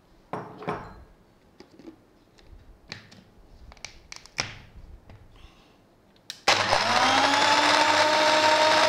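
A few scattered clacks as ice cubes go into the mixer jar and the lid is fitted. Then, about six and a half seconds in, an electric blender starts suddenly, its motor pitch rising briefly and settling into a steady loud whir as it crushes ice into the yogurt.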